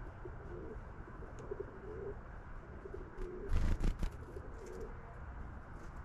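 Pigeons cooing in low, rolling phrases again and again, with a few loud thumps about three and a half seconds in.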